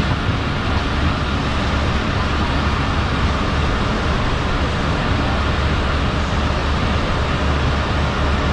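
Passenger train running along the line: a steady, deep rumble of wheels on rail under an even rushing noise.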